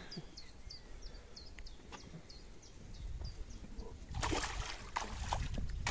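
A hooked carp thrashing in a landing net at the water's surface, with water splashing hardest about four seconds in. A small bird repeats a short, high, falling chirp about two to three times a second through the first few seconds.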